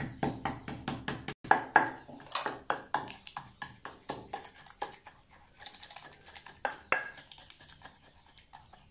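Wooden pestle pounding in a mortar, working a lump of palm sugar into shrimp-paste chili paste: a steady run of dull knocks, about three a second, lighter in the second half.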